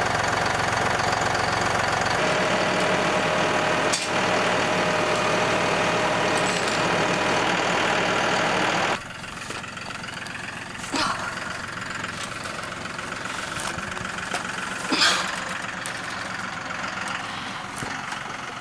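Tractor engine running steadily at close range. It cuts off suddenly about halfway through, leaving a quieter background with a few short, isolated sounds.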